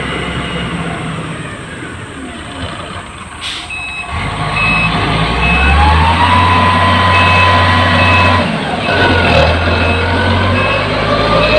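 Motor grader's diesel engine running, then revving up and getting louder about halfway through. Its reversing alarm starts beeping about four seconds in, at about one and a half beeps a second.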